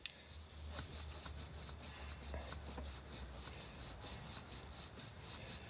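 Faint rubbing and light ticks over a low steady hum.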